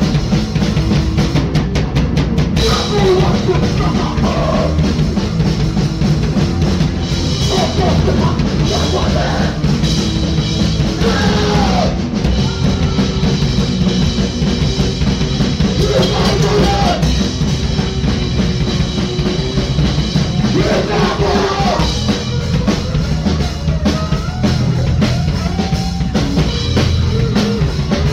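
Crust punk band playing live: a drum kit and guitar, with vocals into a microphone, loud and continuous.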